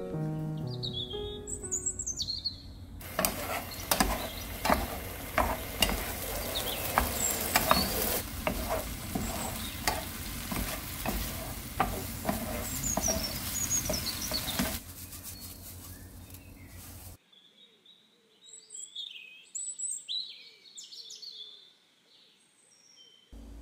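Eggplant slices sizzling in a nonstick frying pan as a wooden spatula stirs and tosses them in seasoning sauce, with quick scraping clicks of the spatula against the pan. The frying stops about two-thirds of the way through, and birds chirp against quiet for the rest.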